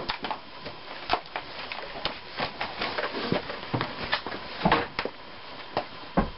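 Footsteps and scattered knocks and clicks, irregular, some with a dull low thud, as people walk off across the room.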